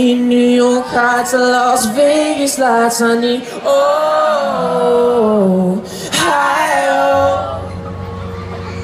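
Live pop-rock concert heard from within the audience: a voice sings a slow, gliding melody in long held notes, with little clear wording. About seven seconds in, a steady low bass note sets in under it.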